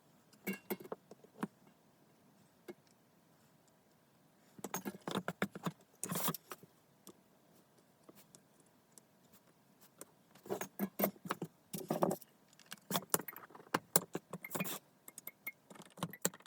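Thin wire leads of through-hole resistors and LEDs on a circuit board clicking and jingling like small keys as they are handled, in several short bursts with quiet pauses between.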